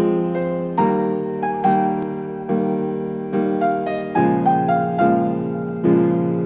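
Slow piano background music: notes and chords struck about once a second, each left to ring and fade.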